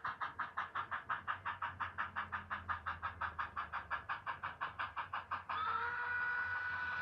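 Narrow-gauge steam locomotive 463, a K-27 2-8-2 Mikado, working with rapid, even exhaust chuffs, about six to seven a second. About five and a half seconds in, its steam whistle starts: a long, steady chord-like blast that covers the chuffs.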